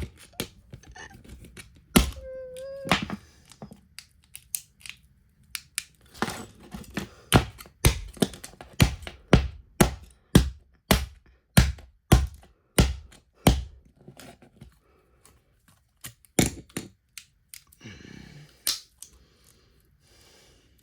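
Tools knocking and clicking against an iPhone 4's frame as it is pried apart, with a run of about a dozen sharp knocks, roughly two a second, in the middle.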